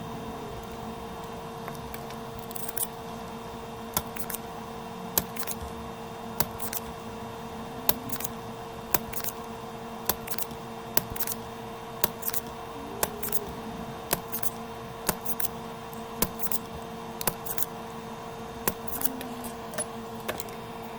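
Small metal hand tools clicking and snipping irregularly, one or two sharp clicks a second, as faulty output capacitors are removed from a circuit board, over a steady electrical hum.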